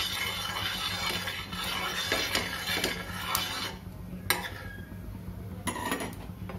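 Steel spoon scraping across a hot iron roti tawa, spreading oil, with small metal clinks. The scraping stops a little past halfway, followed by a couple of sharp clinks.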